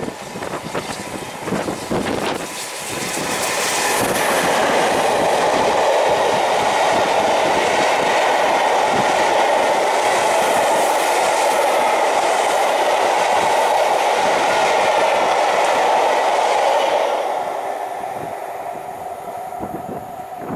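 A train passing at speed, its wheels rattling over the rails. The noise swells about three seconds in, holds steady, and fades away from about seventeen seconds.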